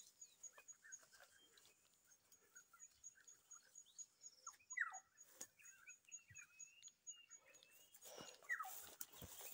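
Faint bush ambience: scattered short chirps and calls of small animals, with a steady high ticking about four times a second and a few soft knocks.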